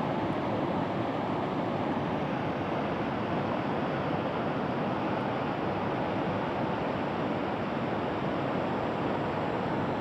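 River rapids rushing over rocks: a steady, unbroken roar of white water.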